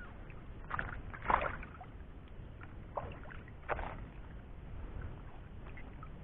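Water splashing and sloshing as a freshly caught fish is put into a keep net standing in the shallows, with four short, sharper splashes in the first four seconds, the second the loudest.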